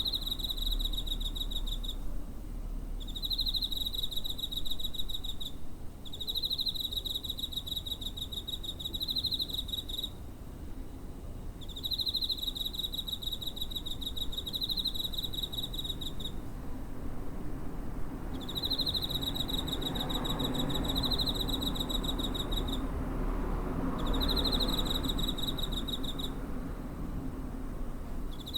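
Cricket chirping in pulsed, high-pitched trills of two to four seconds each, separated by short pauses, over a faint low rumble of background noise.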